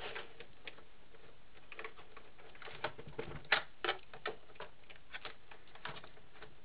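Faint, irregular clicks and ticks of a screwdriver turning Torx screws out of the underside of an original Xbox's plastic case, as the screws are worked loose and handled. A few sharper clicks come in the middle.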